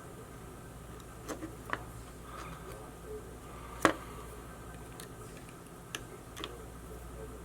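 Scattered small clicks and taps of tools and small parts as an action camera is being taken apart, about six in all, the sharpest about four seconds in, over a low steady hum.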